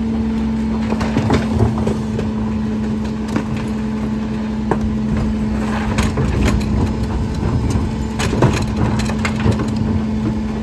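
Rear-loading garbage truck running, with a steady whine from its hydraulics as the cart tippers lift and dump wheeled plastic trash carts. Scattered knocks and bangs of the carts and falling trash.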